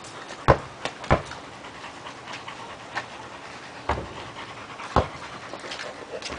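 A dog panting close by, broken by four sharp thuds of a ball bouncing on asphalt.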